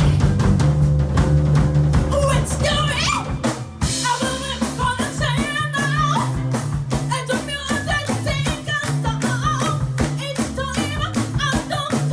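Rock band playing live: drum kit keeping a steady beat under bass and guitar, with a singer's voice coming in about two seconds in.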